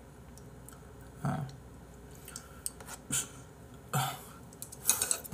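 A few brief throat sounds from a person, spread out with quiet gaps between them, mixed with light clicks from a plastic takeout tray being handled.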